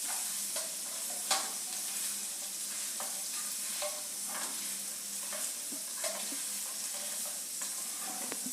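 Chopped green chillies, ginger and green turmeric sizzling in hot oil, with a spatula stirring and pressing them and scraping against the pan now and then. The oil is reused egg-frying oil and is foaming up.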